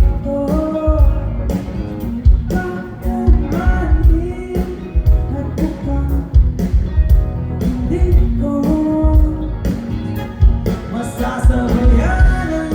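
A band playing a pop-rock song: a steady drum beat, bass and instruments under a singing voice.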